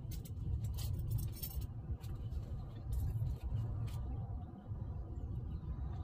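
Light metallic clicks and rattles from the door's handle and lock hardware being worked by hand, a quick cluster in the first second and a half and a few more around three to four seconds in, over a steady low rumble.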